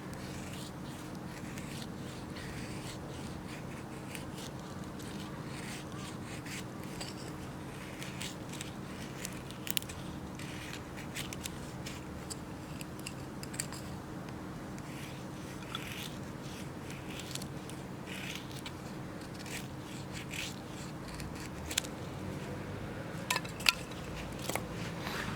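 Scattered small clicks and light scrapes, a few sharper ones near the end, over a steady low hum.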